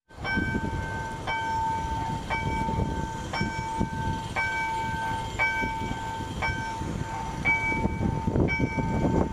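Railway level-crossing warning bell striking about once a second, each stroke ringing on until the next, warning that the crossing is closed. A low rumble underneath swells near the end.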